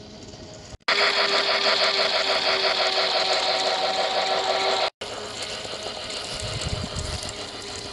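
Model steam locomotive running close by on garden track: its electric motor and gears whir steadily with a fast, even clicking. The sound starts abruptly about a second in, cuts out briefly near the middle, and carries on more quietly.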